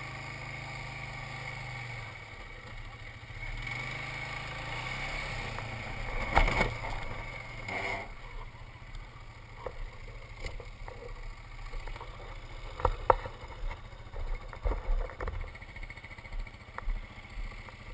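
ATV engine running under throttle as the quad rides through sand, pulling harder for a few seconds, then easing off about eight seconds in. After that come scattered knocks and rattles, the loudest about halfway through.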